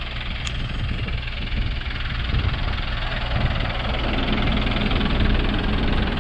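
Jelcz M101I city bus's diesel engine running as the bus draws closer and comes alongside, growing louder, with a steadier drone in the last couple of seconds.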